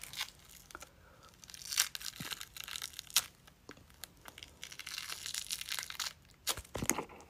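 SFX prosthetic face piece being peeled off the skin: a run of sticky tearing and crackling as it comes away, with a few sharp snaps near the end.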